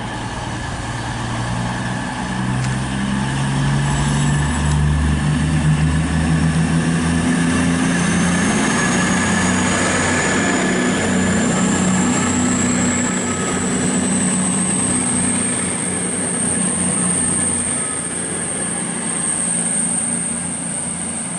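CrossCountry Class 220 Voyager diesel multiple unit pulling away from the platform. Its underfloor diesel engines rise in pitch as they power up over the first several seconds, then a thin high whine climbs slowly as the train gathers speed.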